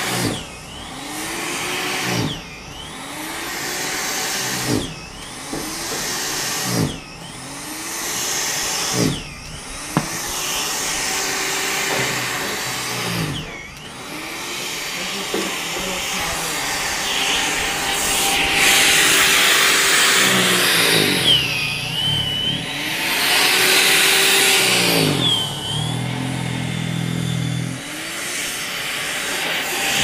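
Small snow thrower's motor running under load, its pitch dipping and recovering about every two seconds as it is pushed into the snow, over the steady hiss of snow being thrown. In the second half the dips are longer and heavier.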